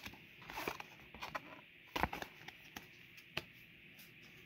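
Pokémon trading cards being flicked through and slid against each other by hand: irregular light clicks and soft scrapes of card stock.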